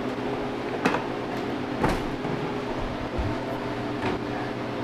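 Steady machine hum, with a few light knocks and clicks as things on top of a sheet-metal freeze dryer cabinet are handled.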